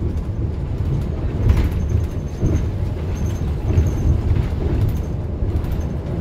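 Inside a moving city transit bus: a steady low rumble of engine and road, with a few knocks and rattles from the bus body and fittings.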